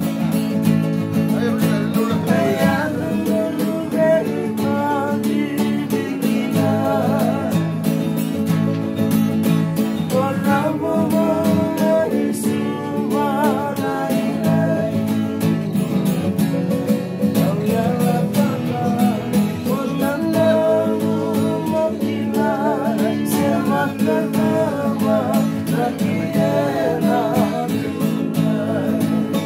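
Acoustic guitar strummed steadily through a song, with a voice singing along over the chords.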